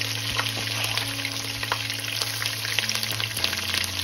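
Sliced onions sizzling in hot oil with cumin seeds, with scattered small crackles, over a steady low hum.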